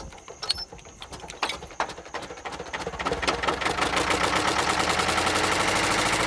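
Small stationary diesel engine starting: a few slow, uneven firing knocks as it turns over, then about three seconds in it catches and speeds up into a fast, steady knocking beat.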